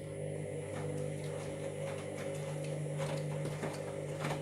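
Washing machine motor turning the drum in one direction: a steady hum with faint irregular ticks. It comes from a machine whose drum and motor are suspected to be faulty.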